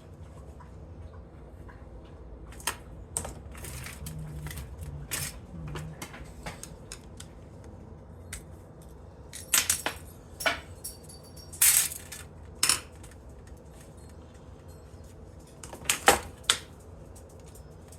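Small pieces of aluminum scrap clinking and clattering as they are handled and dropped onto a pile, in scattered sharp metallic knocks. There is a cluster of louder clinks just before the middle and another near the end.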